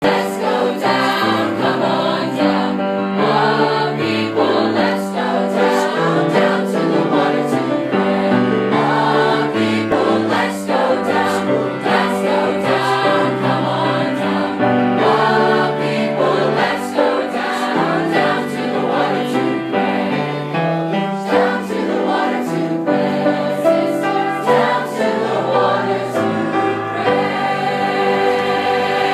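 School choir singing a Christian song together in parts, with a steadily loud, full sound; near the end the voices hold a chord.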